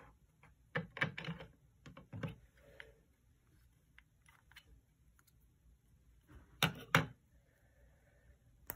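LEGO plastic pieces clicking and knocking as the small assembly is picked up and worked by hand: a quick cluster of clicks about a second in, a few lighter ones after, two loud clicks about seven seconds in and a sharp one near the end.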